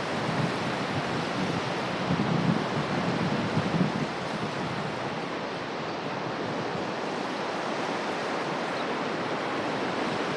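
Steady rush of moving water with wind buffeting the microphone, which comes in stronger gusts between about two and four seconds in.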